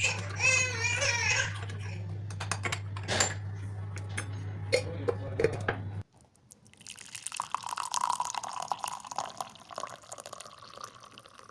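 Tea being poured from a teapot into a cup, a steady splashing stream lasting several seconds. Before it come a few light clicks and knocks.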